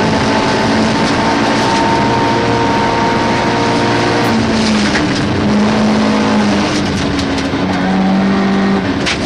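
Rally car engine running hard, heard from inside the cabin, its note stepping up and down in pitch several times as the revs change, over a steady rush of gravel under the tyres. A few sharp clicks come near the end.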